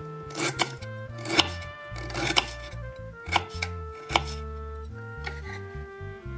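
Kitchen knife chopping peeled fresh ginger on a wooden cutting board: sharp, irregular blade strikes, about one or two a second, thinning out after about four seconds. Soft background music plays under it.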